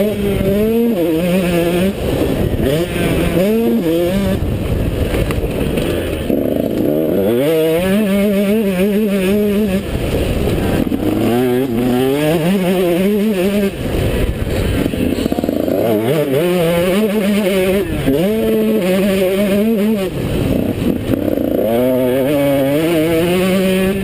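A two-stroke motocross bike engine under hard throttle on a dirt track. Its pitch climbs in repeated surges through the gears and drops back on each shift or lift of the throttle.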